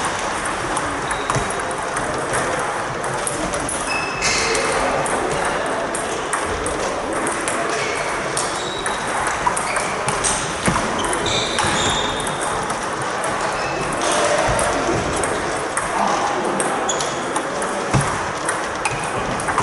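Table tennis ball clicking back and forth off the bats and the table in quick rallies, with many sharp ticks throughout.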